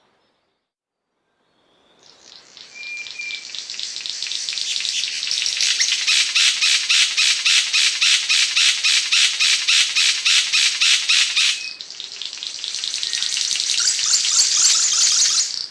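Cendrawasih panji songbird giving a long, evenly pulsed, rasping trill that swells in loudness. It breaks off after about nine seconds, then starts again and builds until it cuts off abruptly.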